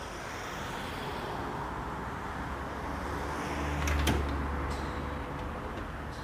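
Radio-drama sound effect: a rushing noise that builds steadily, with a low rumble swelling in about three and a half seconds in and a couple of sharp clicks around four seconds.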